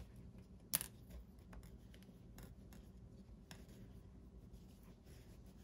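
Faint rustling and light clicks of a fabric strip being wrapped around piping cord, with one sharper click just under a second in.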